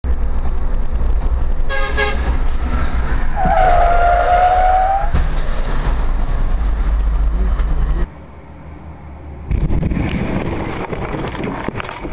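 Vehicle horn honking over a dashcam's engine and road rumble: a short toot about two seconds in, then a long blast lasting about a second and a half. The rumble drops away about eight seconds in and comes back louder and rougher a second and a half later.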